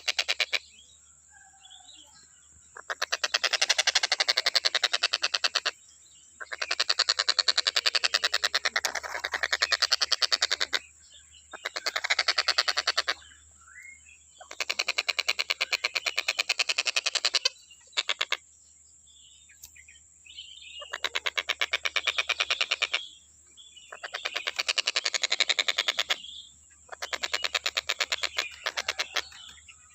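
Tengkek buto (a kingfisher kept as a songbird) calling in long, very fast rattling trills, each lasting two to four seconds and repeated about eight times with short pauses between them.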